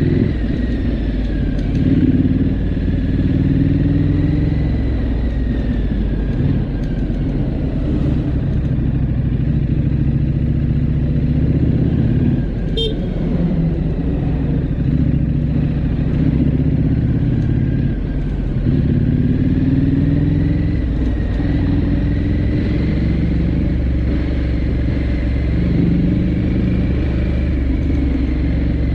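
Triumph Scrambler 900's parallel-twin engine running steadily at cruising speed, its pitch rising and falling gently as the throttle is rolled on and off. A short click comes about thirteen seconds in.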